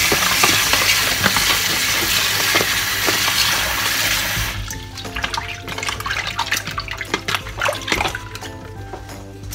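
Kitchen tap running into a plastic tub of raw shrimp as they are rinsed by hand. The tap stops about four and a half seconds in, leaving small splashes and clicks of the wet shrimp being stirred in the tub. Background music plays throughout.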